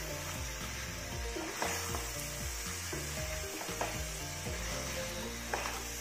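Mutton pieces sizzling in oil and masala paste in a karahi while a wooden spatula stirs and turns them, with a few scrapes of the spatula against the pan. This is the kosha stage, the meat being dry-fried in its spices. Background music plays underneath.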